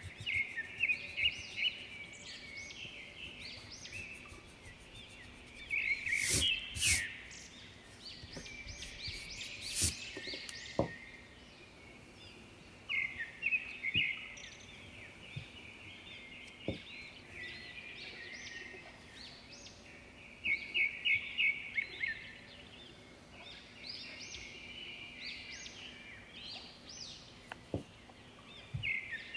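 Birds chirping in repeated bursts of quick, high notes every few seconds, with a few faint knocks in between.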